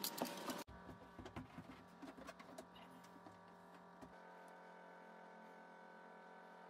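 Near silence: faint scattered clicks and taps during the first four seconds, then only a faint steady hum.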